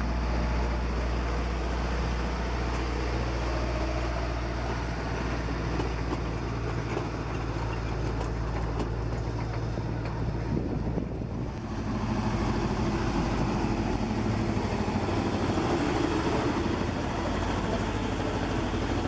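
Small narrow-gauge diesel locomotive running steadily as it hauls a train of open passenger cars past. About twelve seconds in, after a cut, the sound changes to the rumbling running noise of the passing train.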